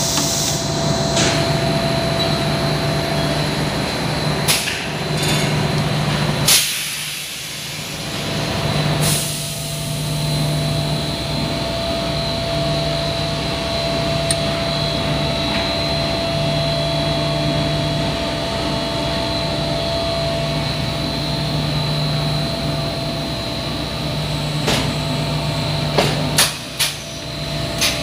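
HDPE extrusion blow moulding machine running: a steady hum and whine, broken now and then by sharp bursts of air and clacks, several of them close together near the end.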